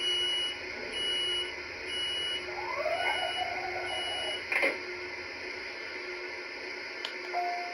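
Lionel LionChief LIRR M7 model train's onboard sound system giving a steady high electronic beep, repeated about once a second five times, with a click about four and a half seconds in.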